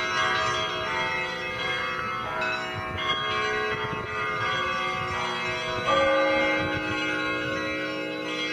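Russian Orthodox monastery bells ringing: several bells of different pitch struck in turn, their tones overlapping and ringing on. A louder stroke comes about six seconds in.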